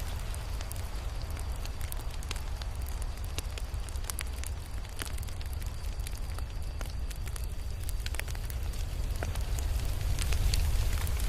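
Crackling fire: irregular sharp pops and snaps over a steady low rumble.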